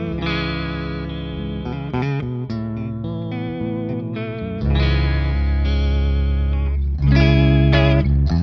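Electric guitar chords played through an EarthQuaker Devices Aqueduct vibrato pedal in sine mode with the depth about halfway, giving the sustained notes a steady, even pitch wobble. New chords are struck about four and a half and seven seconds in.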